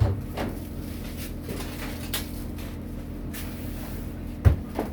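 A couple of sharp knocks, one at the start and a louder one about four and a half seconds in, with a few fainter taps between, over a steady low hum.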